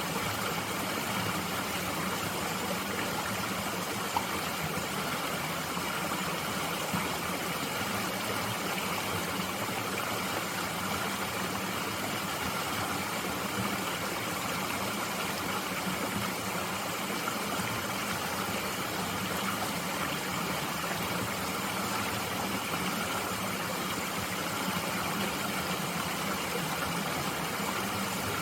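Mountain stream flowing steadily, an even rushing of water, with a faint click about four seconds in.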